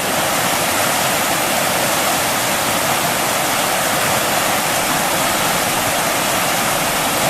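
Backcountry river water rushing steadily over rocks, a loud and even hiss.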